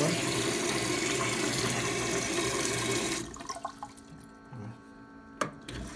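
Water rushing steadily into the bowl of a Japanese electronic bidet toilet, stopping abruptly about three seconds in. A few faint clicks follow, with a sharp knock near the end.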